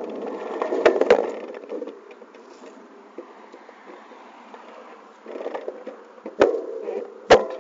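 Ride noise from a bicycle with a handlebar camera: tyre and wind rumble, with sharp knocks as it goes over bumps in the road. There are two knocks about a second in and two more near the end.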